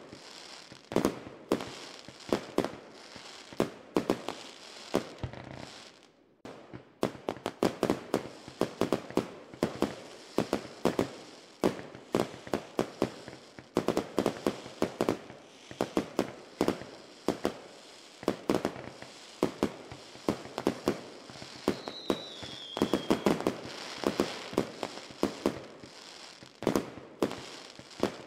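Fireworks going off in rapid, irregular volleys of sharp bangs and crackles, with a brief lull about six seconds in.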